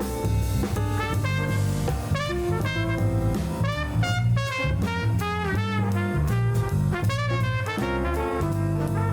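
Jazz-style background music with brass horns over bass and a drum kit.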